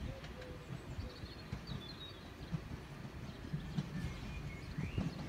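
Small birds chirping in short, scattered calls, with one rising call near the end, over a low, steady outdoor rumble.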